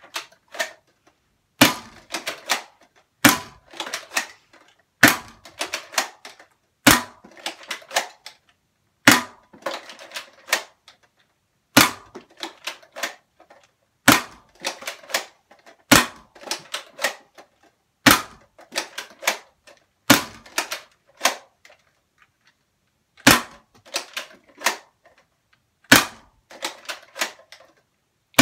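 Adventure Force Aeon Pro spring-powered foam dart blaster fired about a dozen times, roughly one shot every two seconds. Each shot is a sharp snap of the released plunger, followed by a quick run of plastic clicks and rattles as the priming slide is worked for the next shot.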